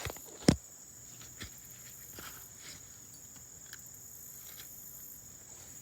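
Footsteps on sandy ground, two louder steps in the first half-second and then softer, irregular ones, over a steady high insect trill.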